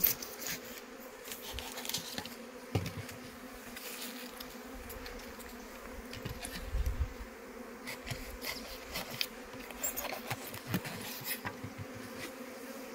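Honeybees buzzing over an open hive as a steady hum, with scattered light clicks and knocks throughout.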